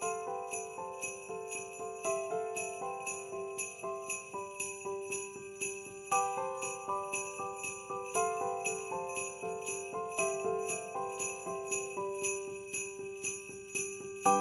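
Background Christmas music: jingle bells shaking in a steady beat over a gentle melody of held notes.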